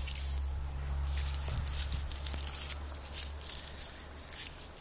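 Dry onion husks and dried tops crackling and rustling in quick, irregular strokes as onions are handled and twisted into a braid, over a low steady hum.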